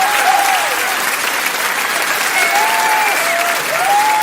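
A large crowd applauding steadily in dense clapping, with voices calling out in long, held cheers above it.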